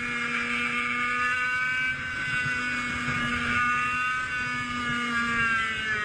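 100cc two-stroke racing kart engine running at high revs with a high, buzzing note. The pitch holds and creeps up, then falls away near the end as the revs drop.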